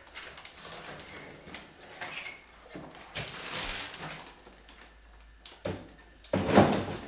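Irregular knocks, scrapes and rustles, with a louder bump about six and a half seconds in.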